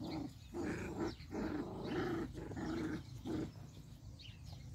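Border collie puppies play-growling at each other in a run of short bursts, dying down about three and a half seconds in.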